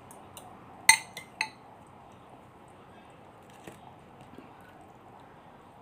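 Metal spoon clinking against a glass bowl: one sharp ringing clink about a second in, two lighter clinks right after, and a faint tap later.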